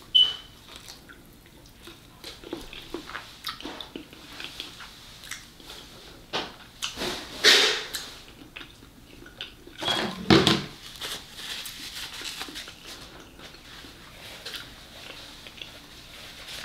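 Close-miked chewing of crunchy fried Chinese takeout food: a crisp bite near the start, then a run of small crunches, wet mouth sounds and lip smacks. A louder dull thump comes about ten seconds in.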